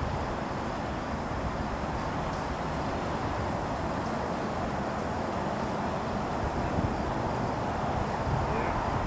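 Steady running noise of a CN hi-rail maintenance pickup truck rolling along the rails, with insects chirring high in pulses broken by short pauses about every second and a half.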